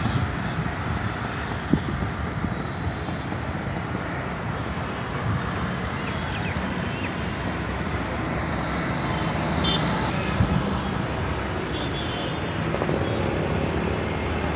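Road traffic at a busy junction: motor scooters, auto-rickshaws, cars and a city bus going by in a steady wash of engine and tyre noise, with a few brief sharper sounds.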